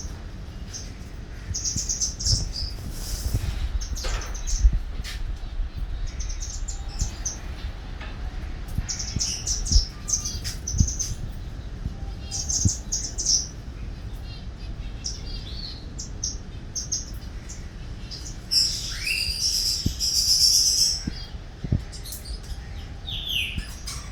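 Small birds chirping in short, high-pitched bursts every second or two, with a longer, louder bout of calls about three-quarters of the way through. Low thumps now and then underneath.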